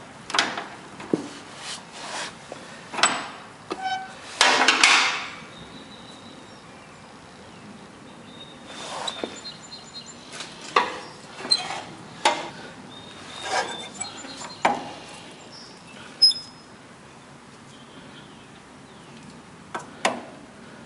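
Irregular knocks and clanks of hand tools being worked on the lawn tractor's front end, with a longer scraping rustle about four and a half seconds in. Faint bird chirps can be heard behind.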